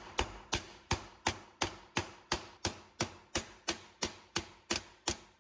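Ball-peen hammer striking a rivet on a chainsaw bar resting on a steel anvil: a steady run of about fifteen sharp metal taps, roughly three a second. The taps are peening the rivet head over to fasten a new replacement nose tip to the bar.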